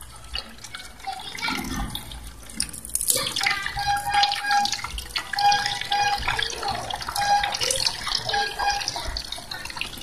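Water splashing and pattering as the stream from a mini submersible fountain pump falls back into a basin and bucket of water. The stream runs steadily.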